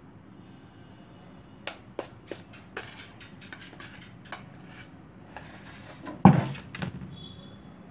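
A metal knife clinking and scraping against a stainless steel pan while scooping out cream icing: a run of sharp clinks and short scrapes, with one louder clank a little after six seconds in.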